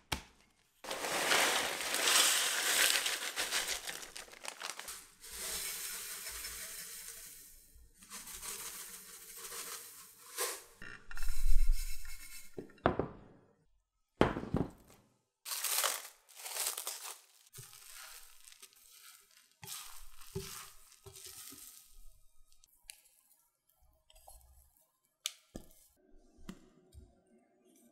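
Plastic crinkling and rustling as a bag of crushed dry instant ramen noodles is handled and shaken, then cling film, with a single heavy thump about eleven seconds in.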